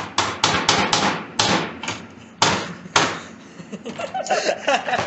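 A quick series of about eight sharp knocks and thuds over the first three seconds, as a cut-off piece of circuit board is forced into a PC motherboard's expansion slot.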